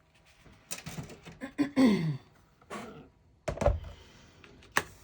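Scrap paper being handled on a craft table: rustling and light taps, with a solid thud about three and a half seconds in and a sharp click near the end. A brief murmured voice is heard around two seconds in.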